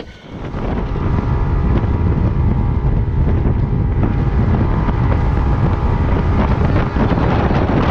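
Boat running at speed under a Mercury DTS outboard motor, with heavy wind buffeting the microphone and the spray of the wake rushing. The steady noise comes up about a second in.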